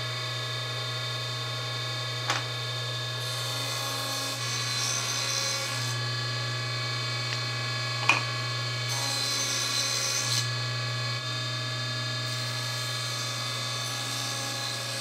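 Table saw running with a steady whine of many tones as a single blade cuts a 1/4 inch by 1/2 inch deep dado in a door frame piece held in a tenon jig, in a series of passes. Each pass adds a hiss, starting about three, nine and twelve seconds in, and there are two sharp knocks, about two and eight seconds in.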